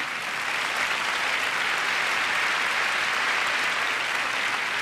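Audience applauding steadily: a dense wash of clapping that swells slightly mid-way and eases off a little near the end.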